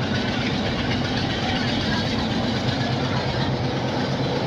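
Passenger train running steadily, a continuous rumble with a low hum underneath.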